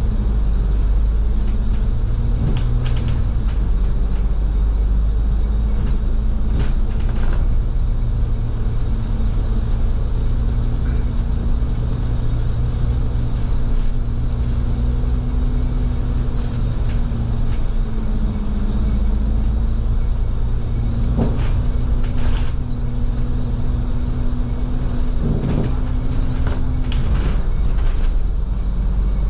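Cabin noise inside a New World First Bus double-decker under way: a steady engine hum over heavy road rumble. A few short clicks and rattles come and go, and the hum drops near the end.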